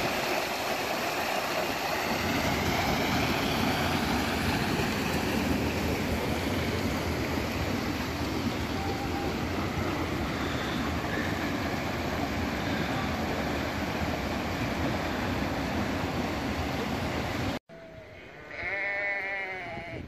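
Fast stream water pouring over a small drop through a gap in a dry-stone wall: a loud, steady rush that cuts off abruptly near the end. A sheep then bleats once, a long wavering call.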